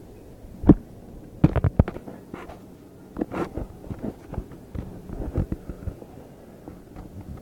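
Irregular low thumps and knocks with some rubbing, typical of a handheld phone being moved about and bumped. One sharp knock comes just under a second in, a quick run of knocks follows about a second later, and smaller knocks and rubbing go on after that.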